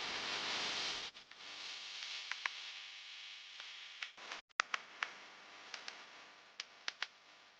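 Food sizzling in a hot pan: a steady frying hiss, loudest in the first second and then easing off, with scattered sharp pops and crackles.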